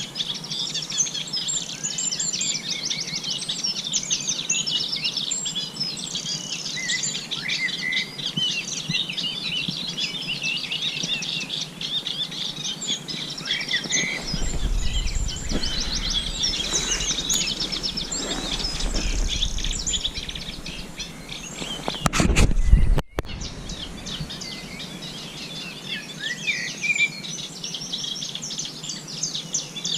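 Many small songbirds singing and chirping at once, a busy chorus of overlapping calls. A low rumble comes in for several seconds about halfway through, then a loud brief burst of noise that cuts off abruptly.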